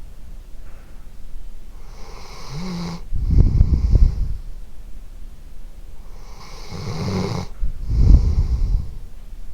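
A sleeping dog snoring: two slow breaths, each a hissing, slightly whistling draw followed by a louder low rumbling snore, about four seconds apart.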